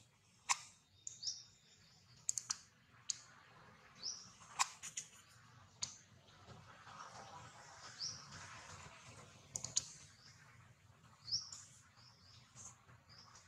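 Birds chirping: short, high chirps every few seconds, mixed with sharp clicks.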